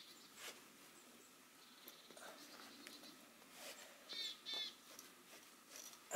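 Near silence: faint rubbing of a hand-held pad along forged rebar steel, with two short bird chirps a little after four seconds in.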